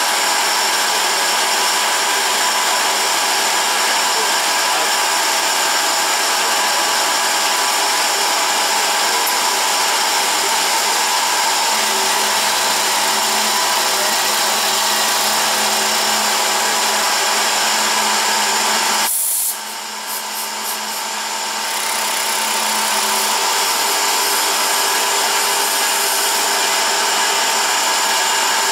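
Wells Index CNC milling machine's spindle running an end mill through wood under program control, a steady whine and hiss. The sound drops suddenly about two-thirds of the way through and builds back over a few seconds.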